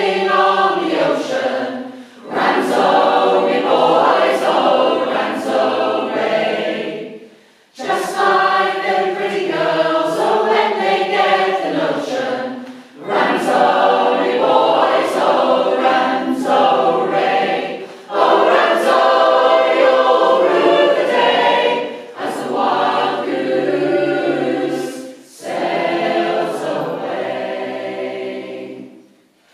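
Mixed choir of men's and women's voices singing a traditional sea shanty unaccompanied, in phrases of a few seconds with short breaks between them.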